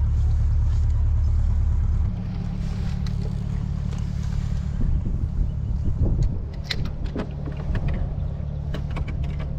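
Canal narrowboat's engine running steadily as the boat passes close by, dropping in level about two seconds in as it moves off. A few light knocks later on.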